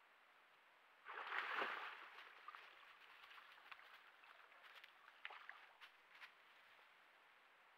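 Black bear splashing in a shallow muddy pool: a burst of sloshing water about a second in, then scattered smaller splashes and clicks as it moves about in the water.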